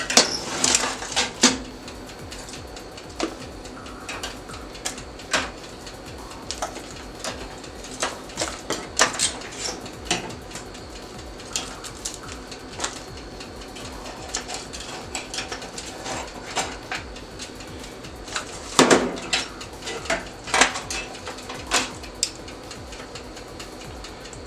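Kitchen utensils and dishes clinking and knocking at irregular intervals, over a steady low background hum.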